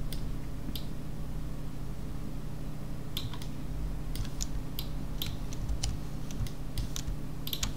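Computer mouse buttons and keyboard keys clicking irregularly, only a couple in the first three seconds and then in quick, uneven succession, over a steady low hum.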